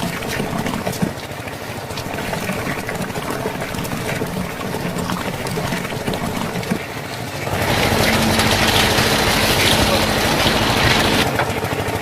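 A small electric motor running steadily, joined by a louder, even hissing rush from about seven and a half seconds in that stops about eleven seconds in.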